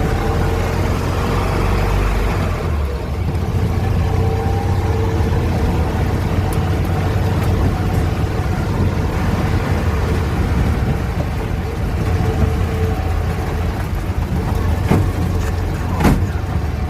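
Steyr-Puch Haflinger's air-cooled flat-twin engine running under way as the little 4x4 drives over rough ground, with a steady whine over the low drone. Two sharp knocks come near the end.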